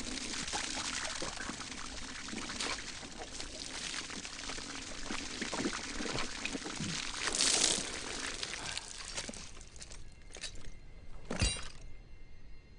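Water gushing from a hose and splashing over a man's body, a steady rushing splash that thins out near the end. One sharp knock shortly before the end.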